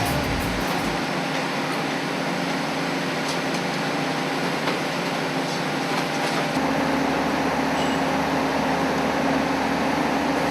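Steady mechanical running noise of a rail vehicle: an even rush with a low hum, joined by a deeper hum about six and a half seconds in.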